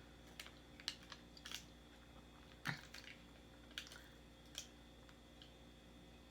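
Faint, scattered mouth clicks and soft crunches of someone chewing a bite of fried chicken, close to the microphone, with one slightly louder click about a third of the way in.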